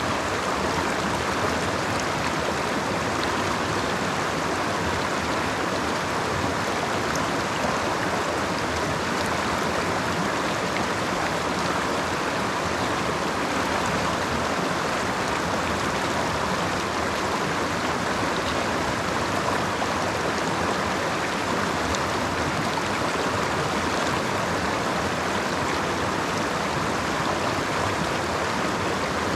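Creek water flowing and splashing over rocks, a steady even rush.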